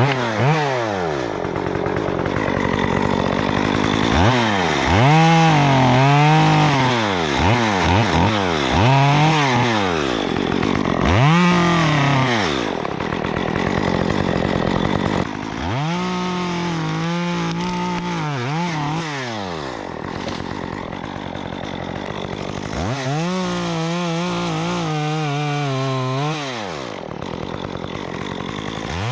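Stihl MS 194T two-stroke top-handle chainsaw with a 1/4-inch ripsaw chain, revving up and dropping back several times, then held at full throttle through two longer cuts of about three seconds each, one about halfway through and one near the end.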